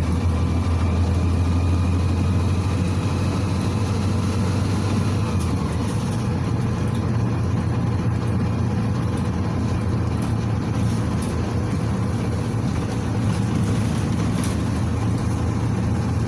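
Cabin noise of a PAZ 4234-04 city bus under way: its YaMZ-53423 diesel engine gives a steady low drone, with road noise over it.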